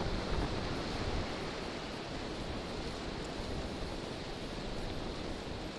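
Steady wind rumble on the microphone of a camera mounted on a moving bicycle, with the hiss of surf breaking along the shore behind it.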